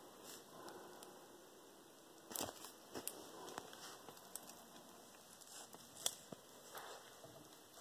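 Faint rustling and a few sharp taps as Savannah cats paw and grab at a feather held close to the microphone, the loudest tap about six seconds in.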